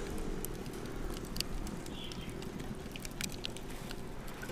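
Burning lump charcoal crackling faintly, with scattered sharp pops and ticks about once a second over a steady low background.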